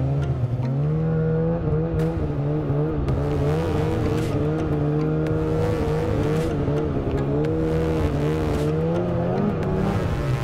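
Polaris 800 snowmobile's two-stroke engine running hard in deep powder, its pitch wavering up and down as the load on the track changes. Near the end it climbs briefly, then drops.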